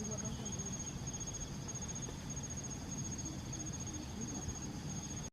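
Forest insects, cricket-like, trilling steadily in a high-pitched pulsing chirr over a low rumbling background, cutting off abruptly near the end.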